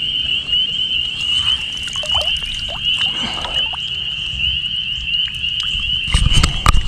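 A chorus of frogs trilling steadily at a high pitch, over a low rumble. Near the end come loud knocks and rustling close to the microphone.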